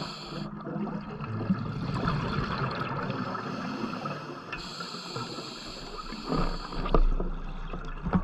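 Underwater water noise around a diver's camera, with two long hissing rushes of exhaled scuba bubbles, one ending about half a second in and one from about four and a half to seven seconds in, and a few dull knocks near the end.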